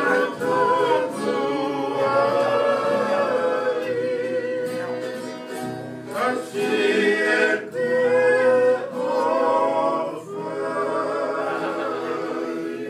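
A group of men singing a Tongan string-band song in harmony, with strummed acoustic guitars and ukuleles.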